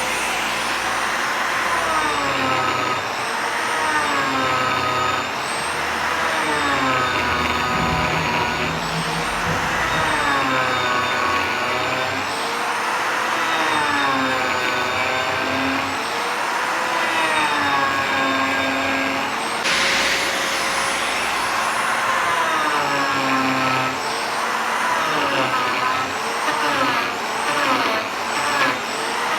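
Electric power tool whining as it works wood, its motor pitch dipping and recovering every couple of seconds.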